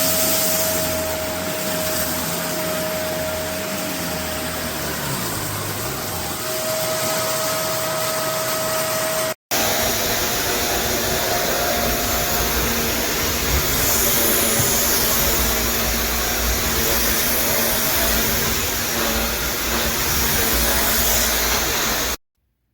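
Upright vacuum cleaner running steadily, a whooshing motor with a steady hum. About nine seconds in it breaks off for an instant and resumes with a lower-pitched hum, then it cuts off abruptly near the end.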